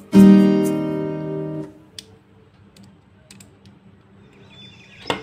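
Background guitar music: a chord rings out and fades over about a second and a half. A quiet stretch with a few faint clicks follows, and the music starts again near the end.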